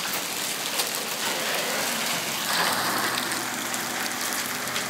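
Steady rain falling, with individual drops ticking close by on hard surfaces. The rain swells briefly about halfway through.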